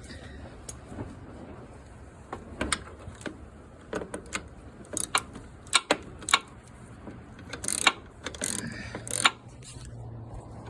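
Ratchet wrench clicking in short, irregular runs while the steering gear box mounting bolts are tightened.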